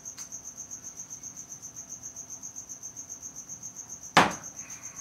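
A cricket chirping steadily, a high pulsing tone at about ten pulses a second, with a single sharp knock about four seconds in.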